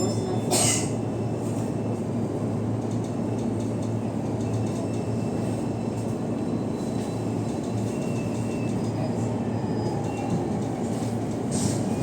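Running noise inside a JR East E233-1000 series commuter train car: a steady rumble of wheels on rail with faint high-pitched squeals, and a brief hiss about half a second in and again near the end.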